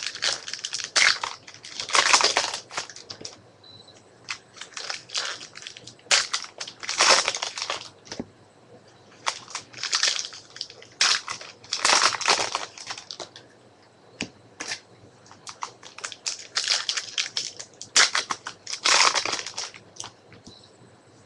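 A foil trading-card pack wrapper crinkling and tearing as it is pulled open by hand, in crackly bursts every few seconds, with the cards rustling as they are handled.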